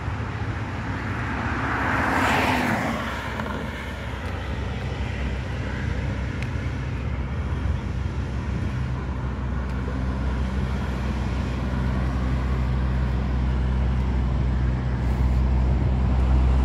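Road traffic heard from the roadside: a car passes about two seconds in, and another vehicle draws closer near the end, over a steady low rumble.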